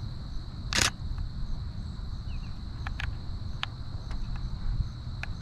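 DSLR (Canon Rebel T7i) shutter firing: a short loud burst about a second in, then a few single clicks later on. Under it are a steady high insect drone and a low wind rumble.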